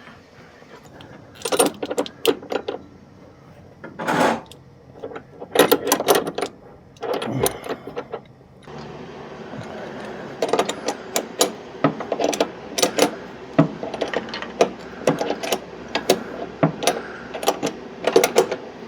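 Metal tools and parts being handled: sharp clinks and knocks in irregular clusters, more frequent in the second half, over a steady background hiss.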